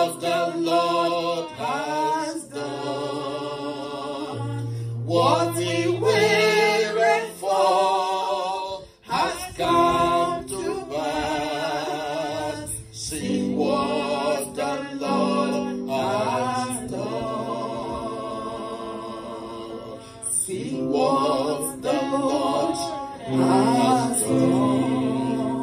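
A woman worship leader singing a gospel praise song into a microphone, her voice wavering with vibrato in phrases of a second or two, over held low accompaniment notes.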